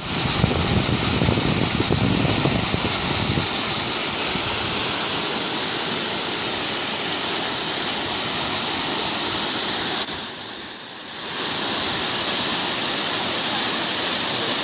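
A river in spate rushing as white water past a concrete bridge, a steady loud rush of floodwater. The level dips briefly about ten seconds in.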